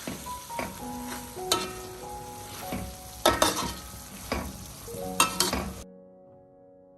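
Food sizzling in a hot pan while it is stirred, with several sharp scrapes of a utensil against the pan. The sizzling cuts off suddenly near the end, leaving soft background music.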